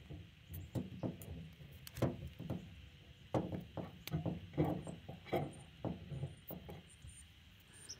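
Greased brake caliper guide pin being pushed and twisted into its rubber boot on the caliper bracket, giving a series of short squeaks and clicks.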